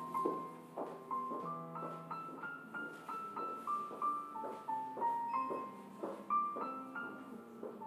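Background piano music: a melody of struck notes moving step by step over held low notes.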